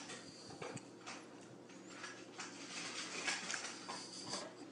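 Faint taps and scuffs of a cat's paws on a granite countertop in a quiet room.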